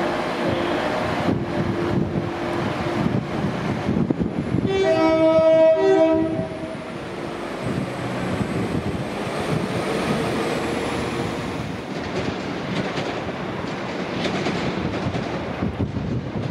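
Northern Class 195 diesel multiple unit moving through the platform with its engine and wheels running. A two-note horn sounds for about two seconds some five seconds in, the loudest sound heard.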